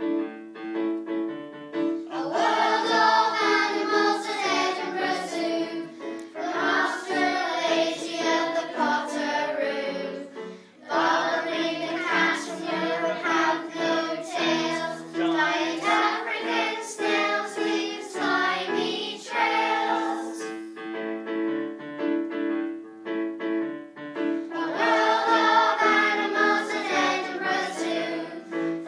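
A children's class choir singing a song in phrases, with keyboard accompaniment holding steady notes underneath. The voices drop out for a few seconds about twenty seconds in, leaving the accompaniment alone before the singing returns.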